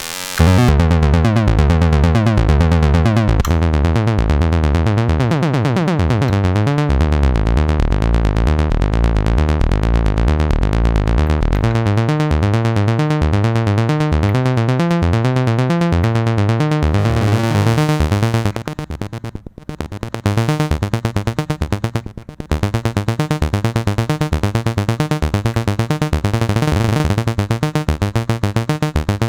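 Behringer Crave monophonic analog synthesizer playing a step-sequenced riff from its single pulse-width-modulated oscillator. A falling sweep runs through the first few seconds over a steady low bass, then the sequence changes to quick repeating notes, briefly thinning out twice about two-thirds of the way in.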